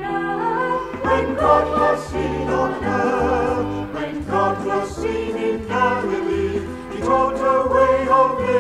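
A vocal group singing a sacred song in harmony, held notes with vibrato over a stepping bass line in the accompaniment.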